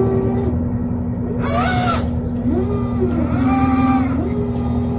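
A boat engine running steadily, with several rising-and-falling tones and two brief hisses over it.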